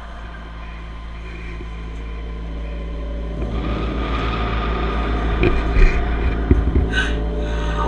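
A deep, steady rumble with a low hum, growing louder about three and a half seconds in, with a few short knocks near the end.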